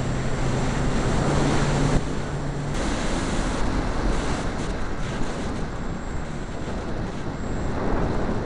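Steady wind rush and propeller noise on an RC plane's onboard camera in flight, with a low motor hum that stops about three seconds in.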